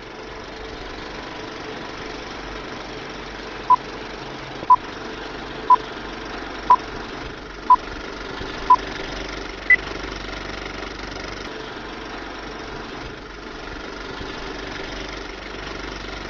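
Film projector running steadily, overlaid by film-leader countdown beeps: six short beeps about a second apart, then a seventh, higher-pitched beep about ten seconds in.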